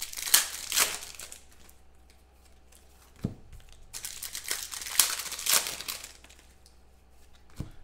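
A foil trading-card pack wrapper being torn open and crumpled by hand, in two spells of crinkling, the first at the start and the second about four seconds in, with a soft knock or two in between.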